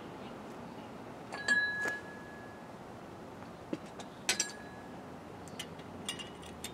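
Steel lock washer and bearing nut on a truck's front axle clinking as they are worked into place by hand. There is a sharp metallic clink with a short ring about a second and a half in, another near four seconds, then a few light ticks near the end.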